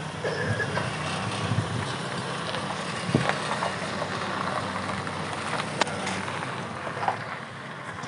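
A vehicle running with a steady low hum, with a few sharp knocks over it, one about three seconds in and another near six seconds.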